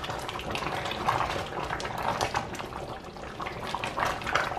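Thick okra stew stirred with a ladle in a stainless steel pot: irregular wet sloshing and bubbling.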